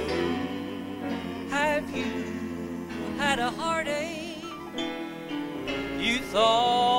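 A slow gospel song beginning: piano accompaniment with a man singing solo, his held notes wavering with vibrato, the strongest held note coming near the end.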